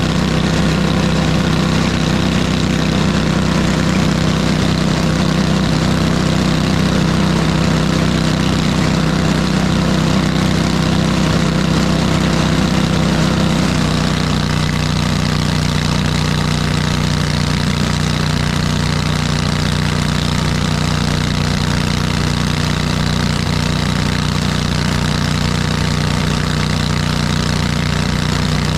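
An engine running steadily, with a slight change in its note and a small drop in level about halfway through.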